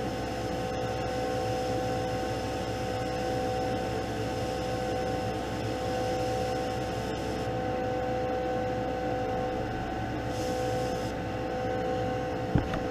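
Spray-booth exhaust fan running with a steady hum, under the hiss of an airbrush spraying paint at low pressure; the hiss stops about seven seconds in, comes back briefly near eleven seconds, and a short knock follows near the end.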